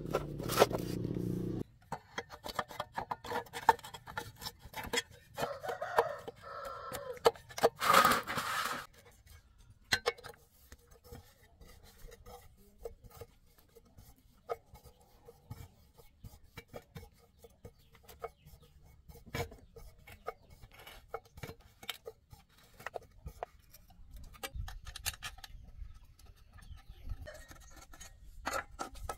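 Scattered clicks, taps and scrapes from hand tools handling metal generator parts. A louder call with a pitch comes about six seconds in and a short loud burst about eight seconds in.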